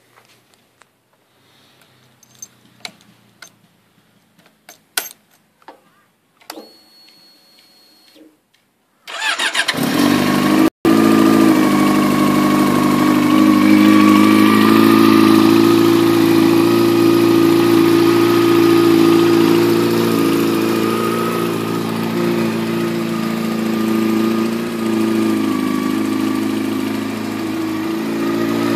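Yamaha YZF-R6 inline-four sport bike cold start: a few light clicks and a short whir, then the starter cranks and the engine catches about nine seconds in. It then idles steadily through an aftermarket slip-on muffler.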